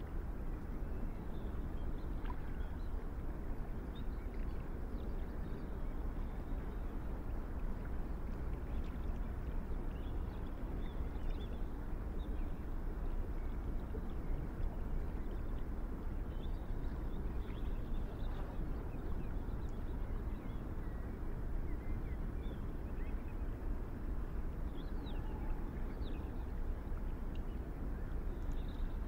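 Steady low outdoor ambient rumble, with faint, scattered high chirps of distant birds.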